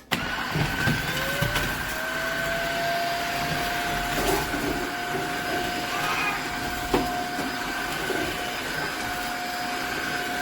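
Tineco Floor ONE S5 cordless wet-dry vacuum switching on: the motor comes in abruptly, its whine rises in pitch for about a second and a half, then it runs steadily with a higher whistle over it. A sharp click about seven seconds in.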